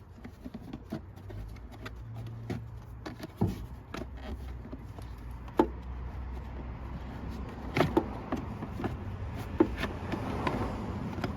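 Scattered clicks and knocks of hands and tools working loose plastic trim clips and covers, several sharp ones standing out, over a low steady hum.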